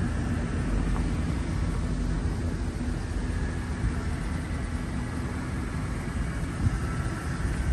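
Vehicle engine idling steadily: a low, even rumble with a faint steady hum.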